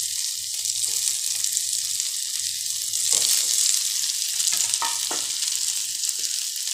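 Leftover cooked rice frying with onion and peas in a pan, the oil sizzling steadily. A few scrapes and knocks of a spatula come about three to five seconds in as the rice is stirred.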